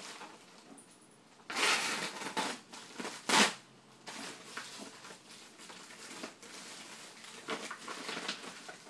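Plastic packaging rustling and crinkling as a big bag of BBs is handled out of the shipping box, with one brief, loud crunch about three and a half seconds in and small crackles after it.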